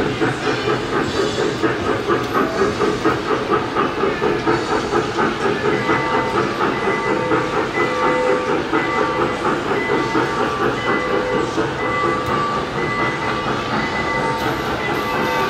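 Recorded steam-locomotive chugging played from a mini train ride's loudspeaker, a rhythmic beat of about two to three a second that evens out about halfway through. Steady whistle-like tones join about six seconds in.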